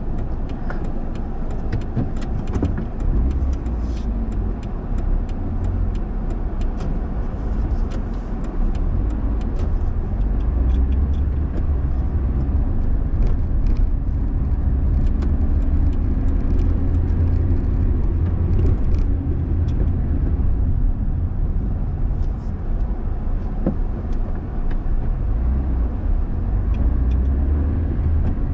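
Car driving through city streets, heard from inside the cabin: a steady low rumble of engine and tyres, slightly louder from about nine seconds in, with scattered small clicks and rattles.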